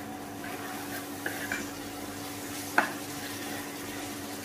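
Fried prawns sizzling in onion-tomato masala in a pan while being stirred with a spatula, with a few light clinks and one sharp knock of the spatula against the pan a little before the three-second mark, over a steady low hum.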